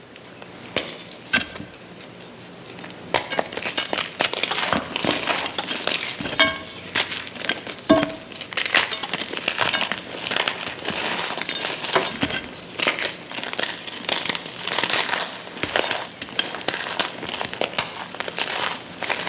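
A block of reformed gym chalk being crushed and crumbling, with dense crackling crunches that pick up a few seconds in and a couple of short clinks.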